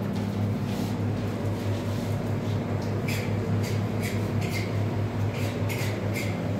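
Steady low hum of running machinery, with light clicks now and then from about two seconds in.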